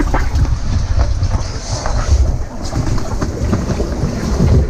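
Loud, continuous rush of whitewater river rapids, with a heavy low rumble from water buffeting the microphone.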